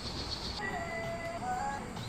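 A steady, pulsing high insect buzz cuts off about half a second in. It is followed by background music: a held melody note that steps slightly in pitch for about a second.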